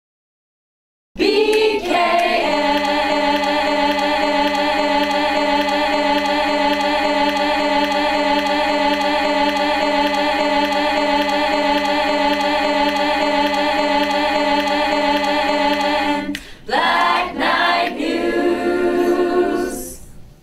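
Choir singing a long held chord, starting about a second in; near the end it breaks off briefly with a few sliding notes, resumes, then cuts off.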